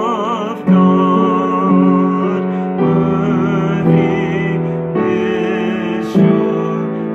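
A man singing a slow worship song with vibrato, holding a long note from about a second in, over sustained instrumental chords.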